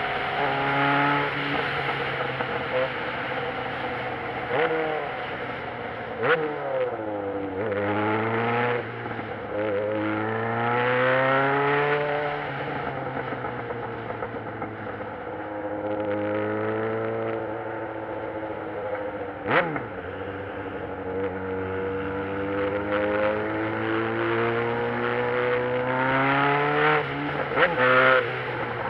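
Motorcycle engine riding in traffic, its pitch climbing as it accelerates and dropping at each gear change or easing off, over and over. A few sharp clicks cut through it.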